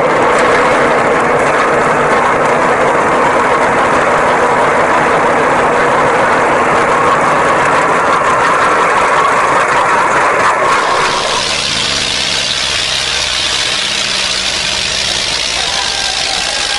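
Tractor engine running steadily with a rapid, even pulsing. About eleven seconds in, the sound changes and turns thinner and hissier.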